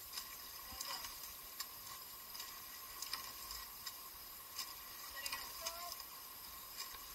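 Oars of a rowing eight clicking and knocking in their oarlocks, a few faint irregular clicks over a steady hiss.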